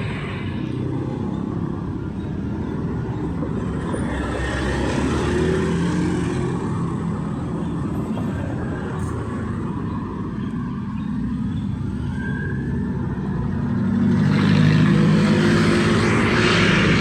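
Street traffic: motor vehicles running past steadily, with a louder vehicle passing close near the end.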